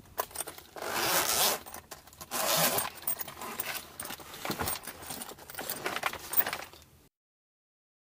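Zipper of a hard-shell carrying case being pulled shut in two long strokes, followed by small scrapes and knocks as the case is handled. The sound cuts off abruptly about seven seconds in.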